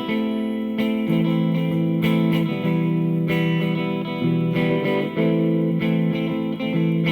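Electric guitar played through a Hughes & Kettner Attax Series Metroverb 50-watt transistor combo amp: sustained, ringing chords that change about once a second.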